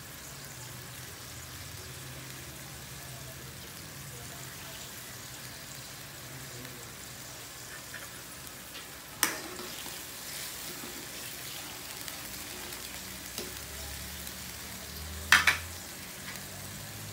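Sprite, soy sauce and oyster sauce boiling hard in a wok with garlic and onion, bubbling and sizzling steadily. Two sharp knocks come about nine and fifteen seconds in, the second the louder.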